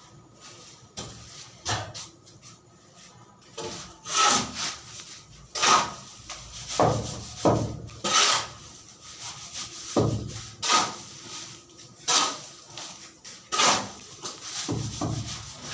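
Wood being sawn by hand: rasping back-and-forth strokes, starting about four seconds in and coming roughly once a second.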